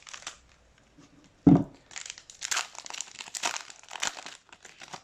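Trading card pack wrapper crinkling and tearing as it is pulled open, with a single loud thump about a second and a half in.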